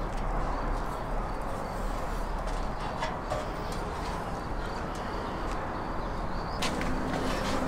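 A few light metal clinks as a rack of skewered chickens is lowered into a ceramic tandoor and set on its rim, with a small cluster of clinks near the end, over a steady outdoor hiss.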